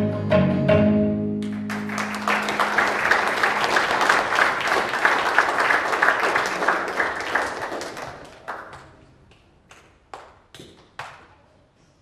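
The band's closing notes, with tabla, ring out for about the first two seconds. Then the audience applauds, fading away by about eight seconds in, with a few scattered claps after.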